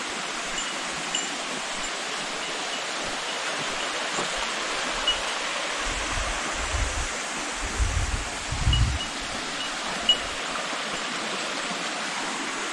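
Steady rush of a mountain stream flowing in the ravine below the bridge. A few low buffets of wind on the microphone come in the middle.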